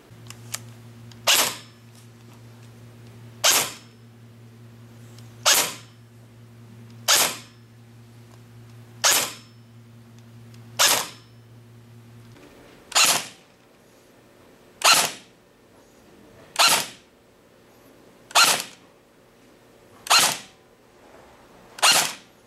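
An SRC MK36C airsoft electric gun (AEG) fired six single shots about two seconds apart, then a JG MK36C AEG fired six more, each a sharp snap of the piston driving a BB through a chronograph. The JG's gearbox sounds to the reviewer as if its gears could use a reshim.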